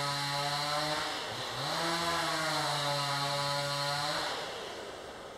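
Gas chainsaw running at steady high speed while ripping lengthwise through a mahogany log. The engine dips briefly about a second in and picks back up, then winds down and stops near the end.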